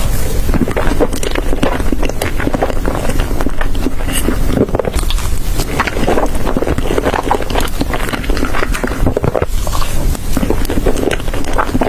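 Close-miked eating: continuous chewing and crunching of food, with dense crackly clicks and wet mouth sounds.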